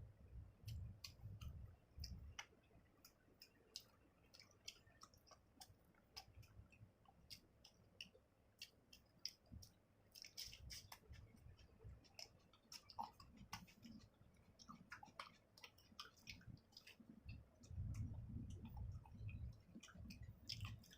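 Close-miked chewing with many small wet mouth clicks and smacks, and a cluster of soft low thuds about eighteen seconds in.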